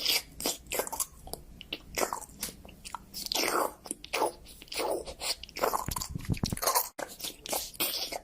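A parrot biting and crunching something with its beak, a quick irregular run of crunches.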